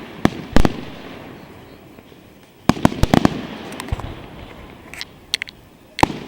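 Aerial fireworks shells bursting overhead: two sharp bangs at the start, a quick cluster of several bangs about three seconds in, then lighter scattered pops and another bang near the end, each with a rolling echo after it.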